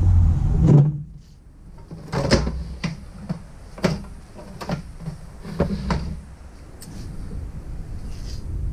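Knocks and clunks from an opened battery charger's casing being tipped, turned and set down on a wooden bench: a string of sharp separate knocks, after a low rumble in the first second.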